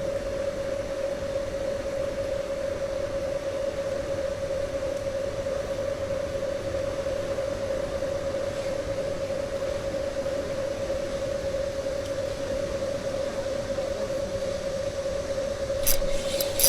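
A steady, unbroken hum at one pitch over a constant hiss, with a few sharp clicks near the end.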